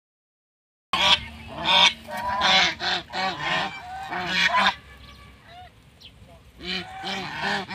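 Domestic geese honking, starting about a second in: a rapid run of loud, overlapping honks, a short lull with a few softer calls, then another cluster of honks near the end.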